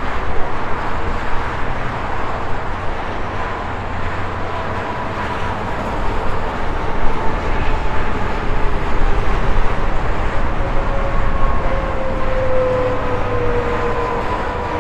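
Highway traffic passing: a steady rush of tyre and engine noise that swells and eases as vehicles go by. In the second half a pitched whine from a passing vehicle slides down in pitch.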